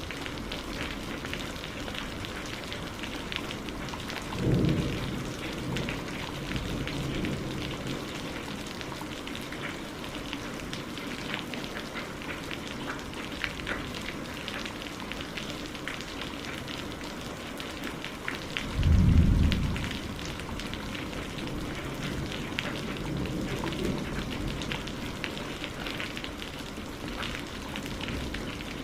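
Steady rain pattering on a surface, with two low rolls of thunder: one about four seconds in and a louder one near the middle.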